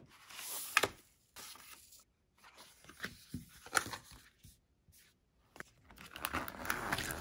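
Paper-and-card packaging of an Apple Milanese Loop watch band being pulled open and unfolded: tearing and rustling of paper in short scattered bursts, with a few light clicks and quiet gaps between.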